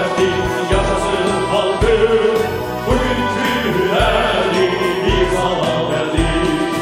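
Backing-track music of a pop song in an instrumental passage: a deep beat about once a second under sustained melody lines.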